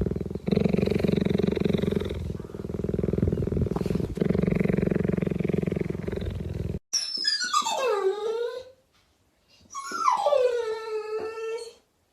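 A dog growling in a low, rapidly pulsing rumble for several seconds. After a cut, two separate long calls slide down in pitch like whining howls, the second levelling off and holding at the end.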